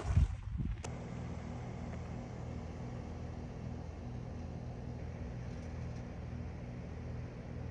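A loud bump in the first second, then a steady low mechanical hum with a faint hiss above it.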